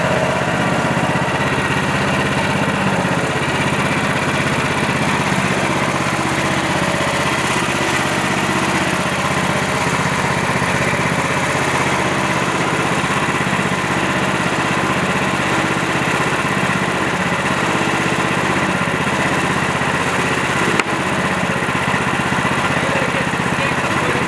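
Small gas engine of a Woodland Mills HM126 portable band sawmill running steadily under power while the mill saws through a log. There is a single brief click near the end.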